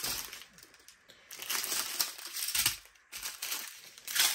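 Plastic bags of diamond painting drills crinkling as they are handled, in several bursts with short quiet gaps between.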